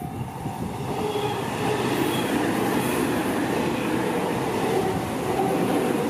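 Tobu Tojo Line electric commuter train passing close by at speed, its wheels running on the rails. The rumble grows over the first couple of seconds as the train arrives, then holds steady and loud as the cars go past.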